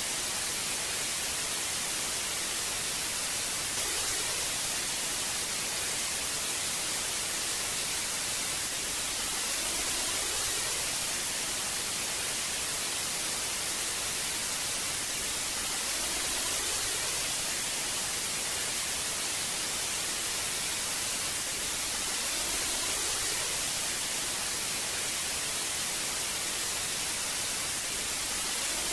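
Analogue television static: a steady, even hiss weighted toward the high frequencies, swelling slightly every few seconds.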